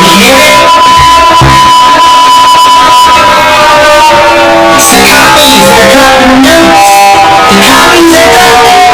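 Very loud music with plucked strings and a steady high tone held through the first three seconds or so, then a shifting melody: the audio of Iran's TV emergency alarm broadcast.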